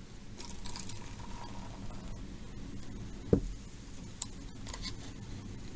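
Cola poured from an aluminium can into a glass, with a faint fizzing hiss, then a single sharp knock on the table a little past halfway and a lighter click about a second later.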